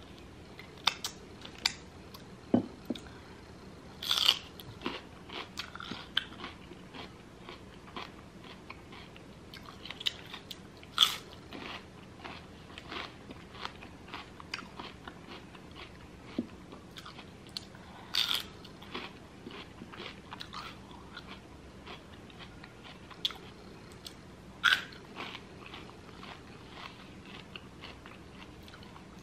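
Close-miked eating sounds: irregular crunching bites and chewing of lemon pepper chicken wings and celery sticks dipped in ranch, with a few louder crunches spread through.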